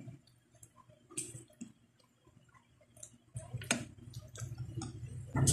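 Eating sounds: scattered soft clicks of a utensil against a plate and small wet mouth sounds of chewing noodles. A low steady hum joins after about three seconds.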